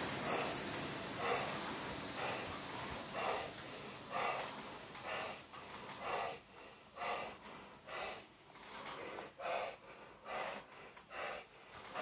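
Heavy, rhythmic breathing of a rower recovering just after a hard 6000 m row on a Concept2 rowing machine, about one breath a second and quickening toward the end. At the start, the hiss of the machine's air-resistance flywheel dies away as it coasts down.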